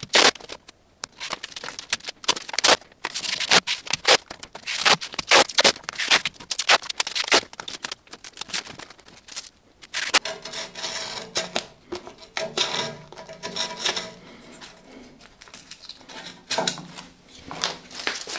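Tape being pulled off a roll in quick, irregular rips and torn, with rustling as it is pressed down by hand. From about halfway there is a longer, steadier pull.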